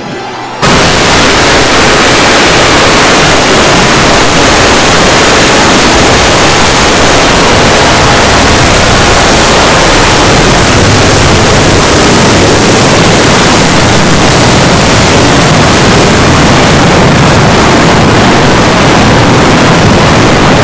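A jumpscare sound effect that bursts in under a second in as a steady wall of extremely loud, heavily distorted noise across the whole range, clipped at full volume.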